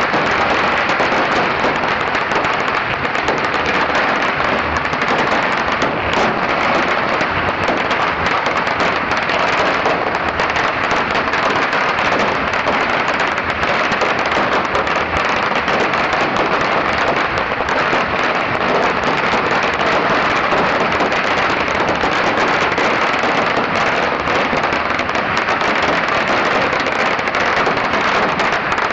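A very long pagara, a string of small firecrackers laid along the street, going off in a dense, unbroken crackle of rapid bangs.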